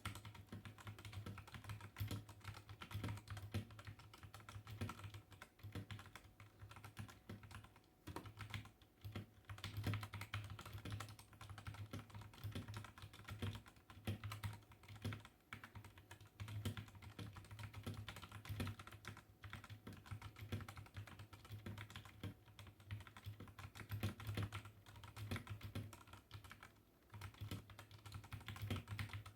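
Continuous typing on a Redragon K630 mechanical keyboard with brown (tactile) switches: a rapid, uneven stream of keystrokes.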